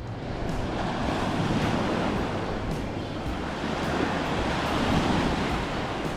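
Waves washing onto a bay beach in a steady surf, with wind buffeting the microphone.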